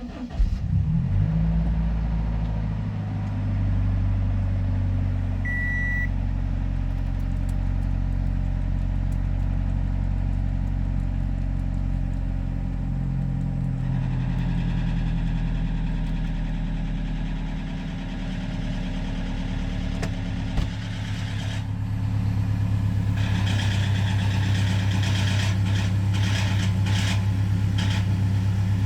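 Toyota HiAce 200-series van engine starting and idling, with a short beep about six seconds in. About two-thirds of the way through it gets louder and a rapid, even ticking noise joins it: the abnormal engine noise that came with a low-oil-pressure warning, whose cause even the Toyota dealer could not find.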